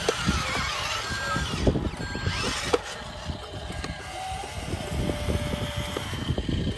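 Radio-controlled dump truck, loaded with soil, driving over muddy ground: a small electric drive motor whines while the wheels make many short crunches and clicks on the dirt.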